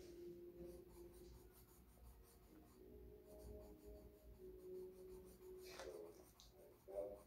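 Coloured pencil scribbling faintly on paper as a drawing is coloured in, over a faint steady hum. A short, louder sound breaks in about a second before the end.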